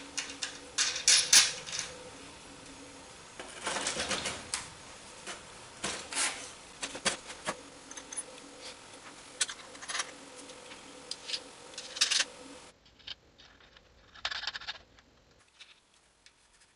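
Steel washers and nuts clinking as they are fitted onto bolts by hand: a run of irregular small metal clicks, fainter in the last few seconds.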